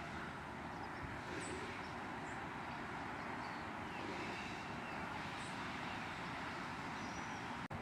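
Steady outdoor ambient noise, an even hiss with a few faint short high chirps scattered through it; it drops out for an instant near the end.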